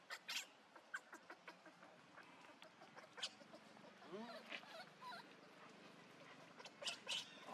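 Faint, scattered short squeaks and calls from monkeys, with one drawn-out rising-and-falling call about four seconds in and a louder pair of sharp calls near the end.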